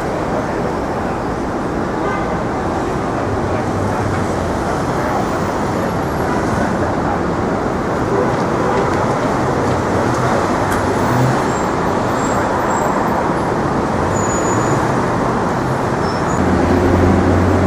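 City street traffic: a steady wash of passing cars and buses. About 16 seconds in, a heavier engine hum, likely a bus or truck, gets louder close by.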